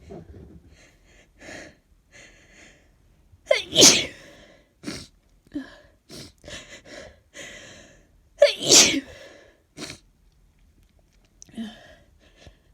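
A woman sneezing twice with a head cold, wet, snotty sneezes about four and nine seconds in, with shorter, quieter noises between them.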